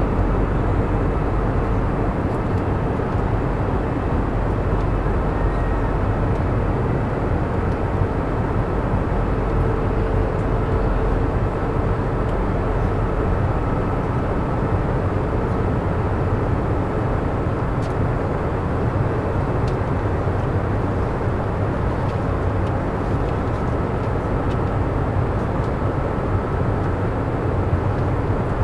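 Airliner cabin noise in flight: a steady, even low rumble of engines and airflow, with a faint constant hum.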